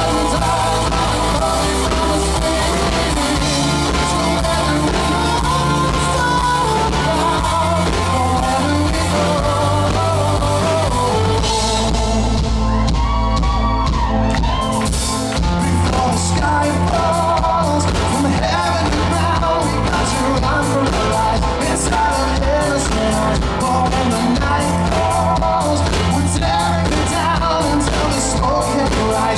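Live rock band playing, with a male lead vocal over keyboard and electric bass. The high end thins out for a few seconds about twelve seconds in, then comes back full with quick repeated strikes.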